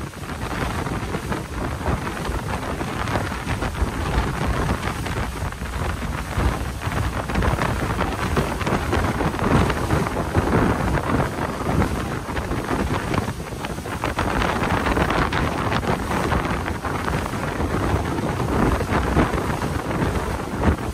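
Wind buffeting the microphone over the rush and splash of water against the hull of a fishing boat running fast through the chop, with spray breaking off the side.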